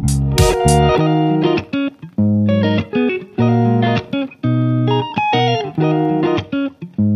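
Background music: an instrumental led by plucked guitar. It is dense for the first second, then goes on as separate plucked notes and chords with short breaks between them.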